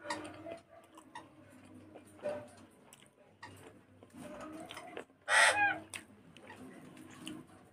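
A short, loud bird call about five seconds in, over faint scattered clicks and a low steady hum.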